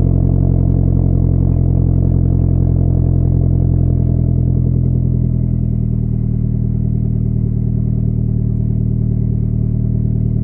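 Mazda 3 MPS's turbocharged 2.3-litre four-cylinder idling cold through a 3-inch (76 mm) stainless exhaust with stainless manifold, 200-cell downpipe and test pipe. A steady, deep idle that settles slightly quieter about halfway through.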